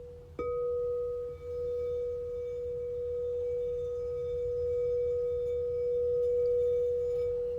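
Crystal singing bowl ringing a steady, pure tone. About half a second in, a bowl is struck, adding fainter higher ringing tones that hold until near the end.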